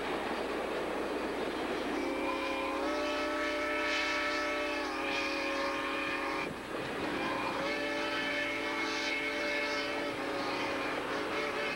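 Steam locomotive whistle on Southern Pacific 2-8-2 Mikado No. 786, sounding three long blasts starting about two seconds in. Passenger cars roll past beneath it with a steady rumble of wheels on rail.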